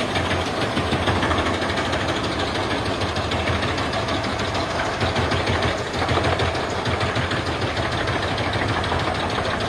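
Wood chipper running steadily, its engine and spinning blades shredding logs into chips, with a brief dip about six seconds in.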